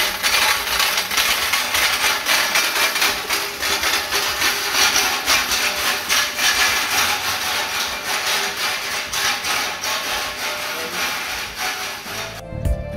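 A dense, steady hiss full of quick clicks and clatter. Background guitar music comes in near the end.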